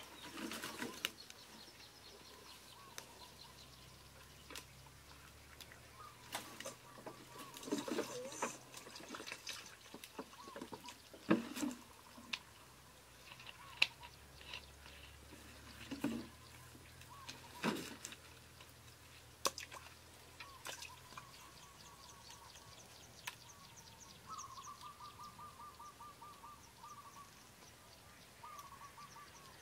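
Scattered knocks and clinks of metal pots and utensils being handled, with water splashing and pouring. A bird's rapid trilling call comes in near the end.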